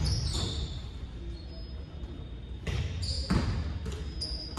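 Basketball bouncing on a hardwood gym floor, a few dribbles in the second half, echoing in a large hall over a steady low background rumble.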